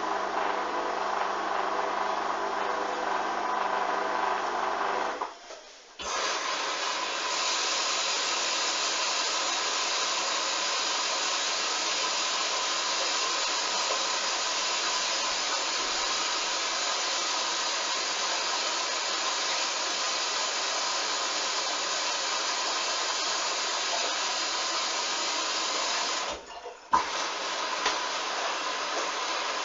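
Hoover washing machine running a duvet wash: a motor hum with steady tones for about five seconds, then, after a brief dip, a steady rushing hiss like water flowing in. A second brief dip comes near the end.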